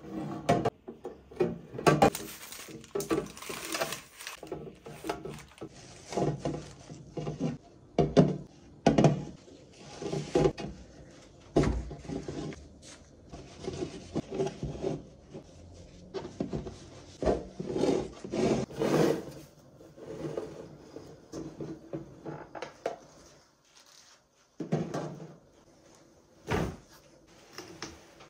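Clear plastic storage containers and other kitchen items being handled and set down on a wooden countertop: irregular knocks, clatters and rubbing, with two separate thuds near the end.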